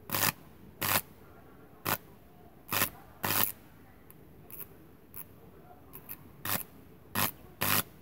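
High-voltage sparks from a microwave oven transformer snapping at the ends of two wires, in about a dozen short, sharp bursts at irregular intervals.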